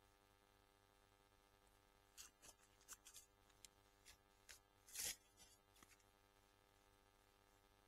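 Faint rustling and crinkling of the OEX Hyena II tent's flysheet fabric as it is handled at the door, a run of short scuffs over about four seconds with the loudest swish near the end.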